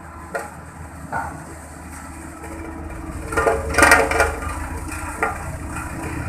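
Road compactor engine running steadily, with a few short knocks and a louder burst of clatter about three and a half seconds in.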